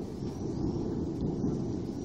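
Rolling thunder: a long, deep rumble that slowly fades, picked up by a mobile phone's microphone.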